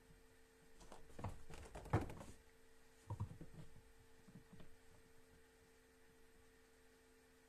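Faint rustling and clicking as a boa constrictor shifts its coils on bark substrate while swallowing a rat. A cluster comes about a second in, with one sharp click near two seconds, then a few softer ones. A low, steady hum runs underneath.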